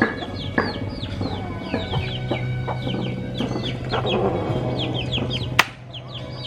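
Chickens calling: many short, falling peeps repeating several times a second, with clucks, over a steady low hum. A single sharp click comes near the end.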